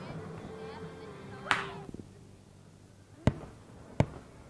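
Fireworks going off: a sharp crack with a brief fizz about one and a half seconds in, then two loud, sharp bangs less than a second apart near the end.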